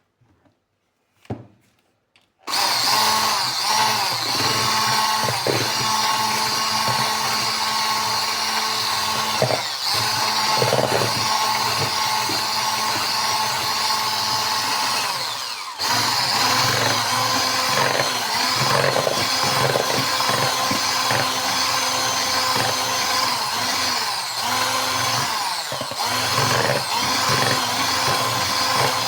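Small electric kitchen motor running steadily. It starts about two and a half seconds in and dips briefly about halfway through.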